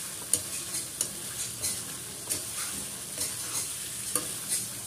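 Chicken leg pieces sizzling in oil and spice masala in a steel kadai, stirred and turned with a spatula that scrapes and knocks against the pan about twice a second over a steady frying hiss. The masala is at the stage where the oil has separated, and the chicken is being sautéed in it.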